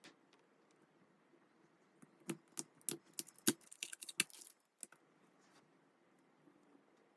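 Album packaging being handled: a quick cluster of sharp clicks and crinkles about two seconds in, ending with one last click near five seconds.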